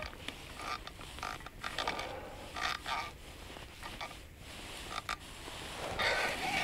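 A string of short, irregular scrapes and squeaks from handling a small ice-fishing rod and reel while a hooked fish is being played.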